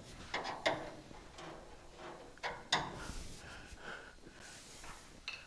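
A few sharp clinks and knocks, with scraping in between, from a hand tool worked against the sheet-metal seam of a welded-on fender skirt to free it from the body.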